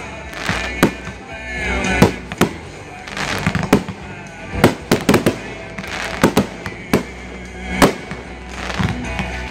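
Aerial firework shells bursting overhead: a dozen or more sharp, irregularly spaced reports, some in quick clusters, one close after another.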